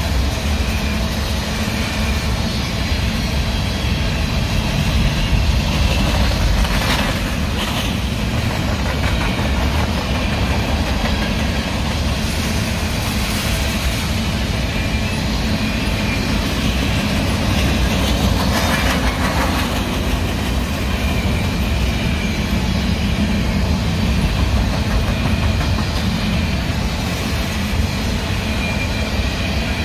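Freight train's covered hopper cars rolling past, a steady rumble of steel wheels on rail, with two short swells of hissing wheel noise about a third and two thirds of the way through.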